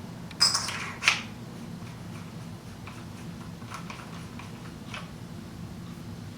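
Two sharp metal clacks about half a second apart, then a few faint clicks: an aluminium 6-inch airsoft amplifier being handled and fitted onto the threaded muzzle adapter of a gas blowback gun.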